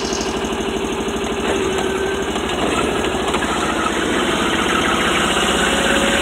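Amphibious Argo ATV's engine running steadily while the vehicle drives along, a fast even chugging that grows slightly louder.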